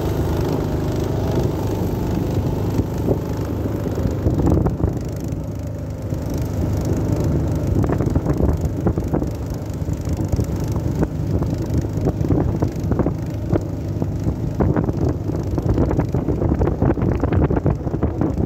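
Small boat engine running steadily as the wooden boat moves across the lake, with wind buffeting the microphone, gustier in the second half.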